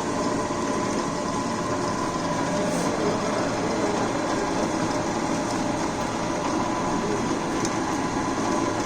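CKP DM-25 gear-head drilling-cum-milling machine running steadily on its 1 HP three-phase motor and V-belt drive: an even mechanical running noise with a thin steady whine.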